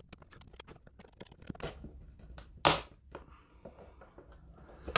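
Plastic case of a smart plug being pried apart at its seam with a small screwdriver: a run of small clicks and scrapes, then one loud sharp crack about two and a half seconds in and a smaller snap near the end, the glued shell giving way.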